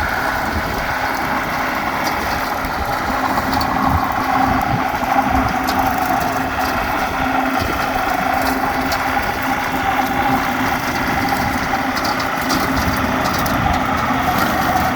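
Tractor engine running steadily under load, driving a chopper mower that is clearing ground.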